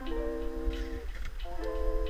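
Music: sustained chords, the first fading out about a second in and a new one coming in about a second and a half in.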